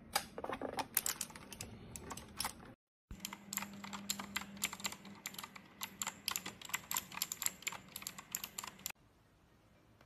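EGA TYPE CMK1 mechanical keyboard being typed on: rapid keystroke clacks, with a short break about three seconds in, stopping about a second before the end.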